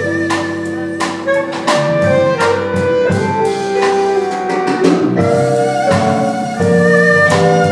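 Instrumental music: a slow melody of held notes over chords, with drum and cymbal strikes marking the beat.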